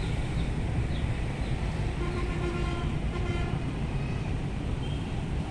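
Outdoor background noise: a steady low rumble. A faint horn-like tone sounds from about two to three and a half seconds in.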